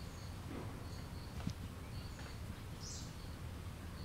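Outdoor garden ambience: a steady low rumble with birds chirping now and then in short high notes, and a louder bird call about three seconds in. A single sharp click about a second and a half in.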